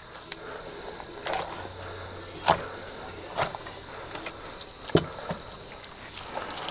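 A long knife working along a gar's backbone past the ribs: quiet scraping broken by a handful of sharp clicks.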